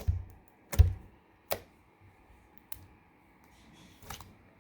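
A handful of scattered soft clicks and light thumps, about five in all, the loudest about a second in, over faint background hiss.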